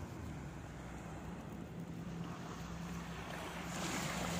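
Beach ambience: wind on the microphone over a steady low hum. A rush of wind noise grows louder near the end.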